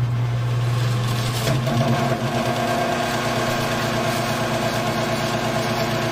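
Vintage Toastmaster 5302 12-inch electric fan started on high: a steady motor hum, joined about a second and a half in by a steady whirr and whine of the blades and air as it comes up to speed.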